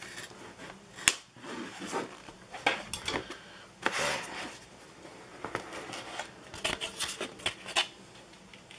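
Cardboard phone box and its packaging being handled and opened: scattered rustling, scraping and light clicks, with one sharp click about a second in.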